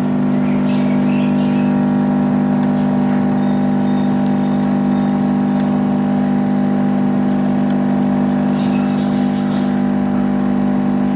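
Espresso coffee maker's pump running with a steady, loud buzzing hum while it brews a shot of espresso.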